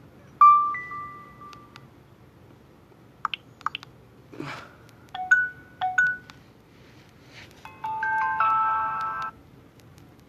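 Short Nokia 6700 Slide alert tones playing one after another on a Nokia 150: a two-note chime, a few quick blips, another pair of short two-note tones, then a brief chord-like jingle about eight seconds in.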